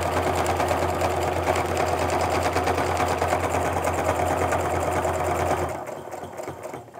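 Domestic sewing machine running steadily at speed, stitching through a quilt sandwich during ruler-foot machine quilting, with a fast, even needle beat; it stops near the end.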